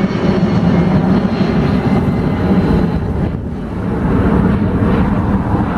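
Boeing 757 jet airliner's engines running, a loud, steady low rumble with a brief dip about three and a half seconds in.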